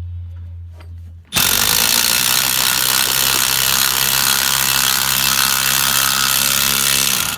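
Electric power tool spinning the nut down the threaded rod of a homemade valve spring compressor, compressing an LS valve spring. It starts suddenly about a second in, runs at a steady speed for about six seconds and stops abruptly near the end.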